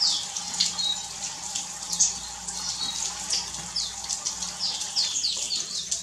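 Small aviary finches such as munias chirping: a dense run of short, high chirps, many overlapping, over a steady hiss.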